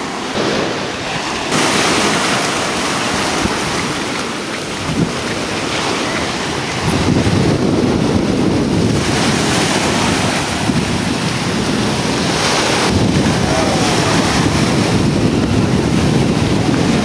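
Ocean surf washing up on a beach, mixed with wind buffeting the microphone, growing louder about seven seconds in.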